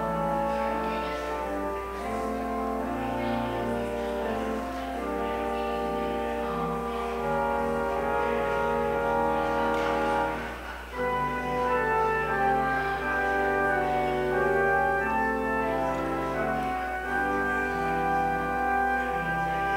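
Service prelude music: slow instrumental music of long held chords on a keyboard instrument, with a brief drop in loudness about eleven seconds in.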